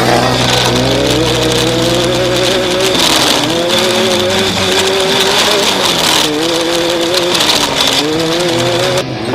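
Off-road race vehicle's engine revving up and holding high revs, backing off and climbing again three times, with a steady high whine above it. The sound changes abruptly just before the end.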